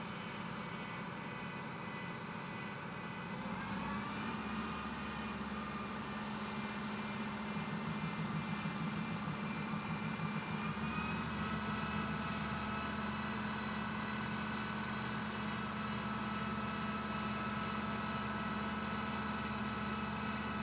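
Steady machine hum made of several steady tones, rising a little in pitch about four seconds in and again about eleven seconds in.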